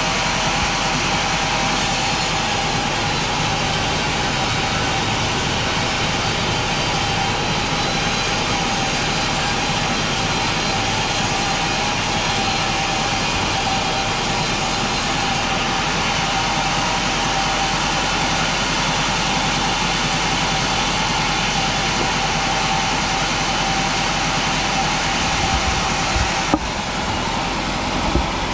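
Motorized saw running steadily, with an even, unbroken engine sound while cutting a large pine log; a couple of sharp knocks near the end.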